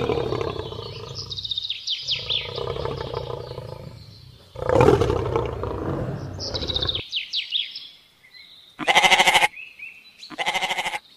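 Lion roaring twice, long and rough, with birds chirping over it. After a short pause come two short sheep bleats about a second and a half apart.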